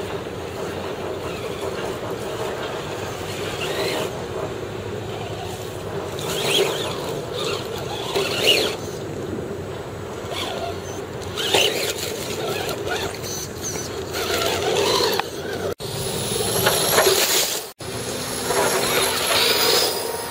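Axial AX10 RC crawler truck driving: a steady electric motor and gear whine, with louder surges as it throttles up and its tyres scrabble over dirt, leaves and brick. The sound cuts out briefly twice near the end.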